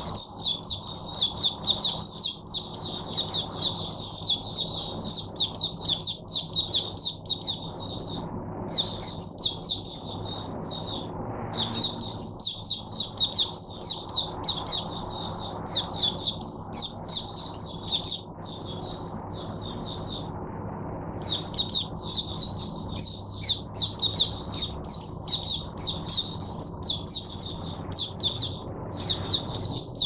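White-eye (mata puteh) in full song: a long, fast, high twittering run of chirps, broken by a few short pauses.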